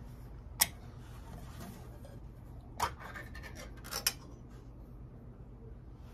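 Metal can of coconut milk being opened by its pull-tab lid: four sharp metallic clicks, the last two close together about four seconds in.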